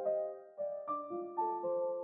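Soft background piano music: held notes and chords changing about every half second.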